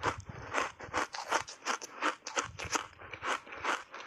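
A mouthful of matcha-powder-coated block ice being chewed, with rapid crisp crunches about four a second as the ice cracks between the teeth.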